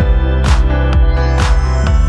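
Background electronic music with heavy bass and a steady beat, a sharp hit landing roughly once a second.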